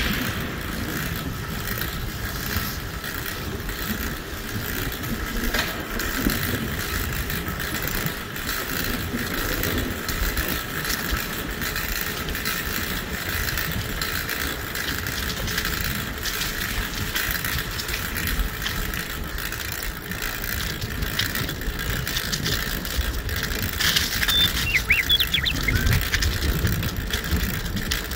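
Bicycle riding along rough pavement: a steady rush of tyre rolling noise and wind on the microphone, with a few short high squeaks near the end.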